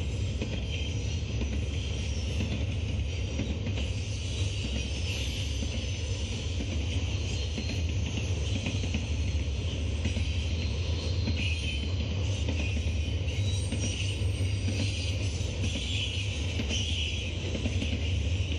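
Double-stack intermodal freight train's container cars rolling past: a steady low rumble of steel wheels on rail with a hiss above it.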